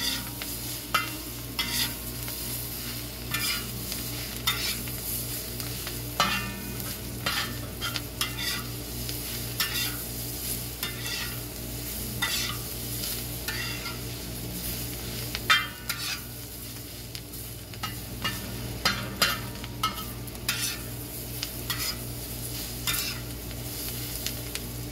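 Cabbage frying in a steel discada, a plow-disc wok, over a charcoal fire: a steady sizzle, with a long-handled metal utensil repeatedly scraping and stirring across the steel.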